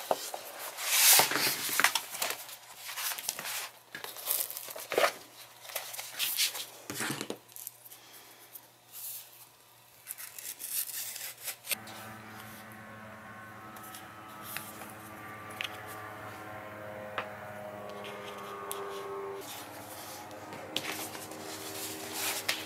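Paper crackling and short rips as the glued spine of a paperback coloring book is worked loose and its pages are pulled away from the binding. About halfway through, the paper sounds thin out to a few clicks and soft background music of held tones comes in.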